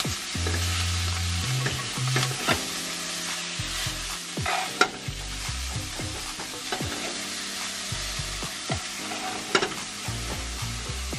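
Pork offcuts sizzling in oil in a nonstick frying pan, stirred with a plastic spatula. A steady frying hiss runs throughout, with a few sharp scrapes and knocks of the spatula against the pan.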